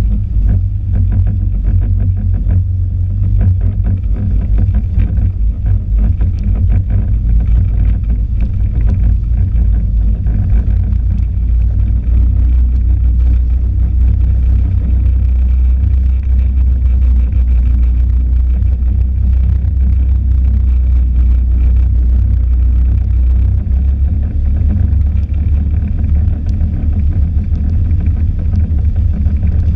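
Snowmobile running at a steady cruising speed, heard from on board: a loud, unbroken low rumble of engine and track.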